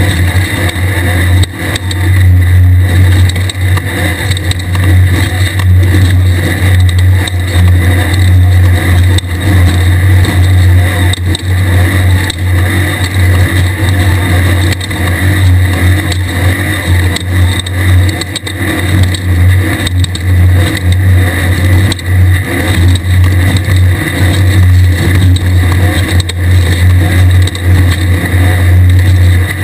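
Onboard sound of a 1600-class desert race buggy under way: a loud, steady engine drone mixed with a constant rush of noise from the running car.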